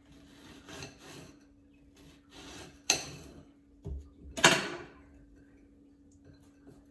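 A knife slicing a red onion thinly by hand: a series of irregular cuts and scrapes, with a sharp knock about three seconds in and the loudest stroke about four and a half seconds in.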